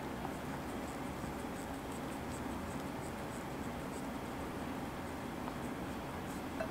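Wooden craft stick stirring a foamy slime mixture in a glass bowl, making a steady scraping against the glass.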